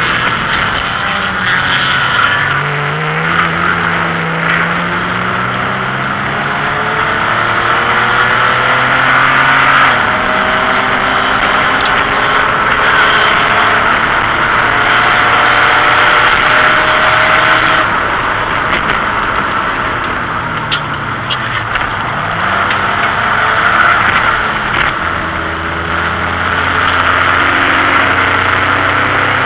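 BMW 528e's straight-six engine heard from inside the stripped race-car cabin at racing speed, its pitch rising under acceleration and dropping back at each gear change or lift, over loud wind and road noise.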